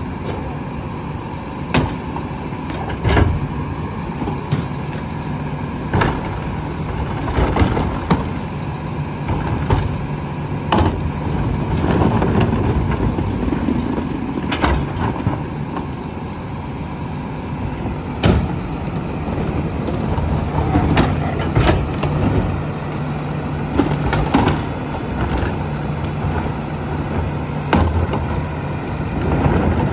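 Split-body rear-loader garbage truck idling while its hydraulic cart tippers lift and dump wheeled plastic bins. Repeated bangs and clunks sound every second or few seconds as carts hit the tippers and hopper.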